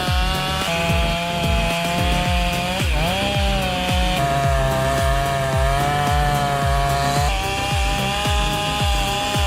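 Chainsaw engines running at high revs, the pitch shifting at several points, with a dip and rise about three seconds in. Underneath is background music with a steady kick-drum beat of about two a second.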